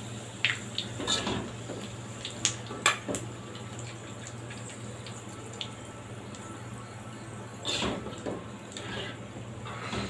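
Hot frying oil bubbling and sizzling gently in a wok around lemongrass stalks, with scattered sharp pops. Near the end there is a louder rustle as a wire strainer stirs through the oil.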